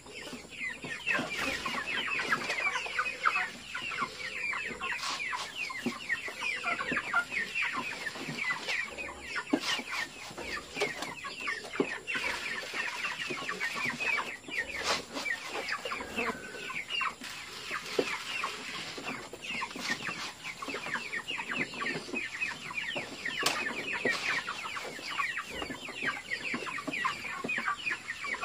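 A flock of white broiler chickens peeping and clucking nonstop, many short falling chirps overlapping, with a few sharp clicks scattered through.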